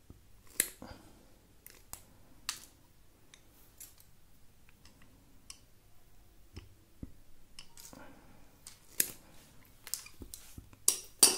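Pliers snipping and working on electrical wire. Irregular sharp clicks and snips, with the loudest pair coming near the end.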